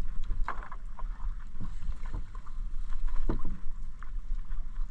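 Water splashing and dripping as a wet gill net is pulled hand over hand out of the sea into a small outrigger boat, with a few light knocks. A steady low wind rumble on the microphone runs underneath.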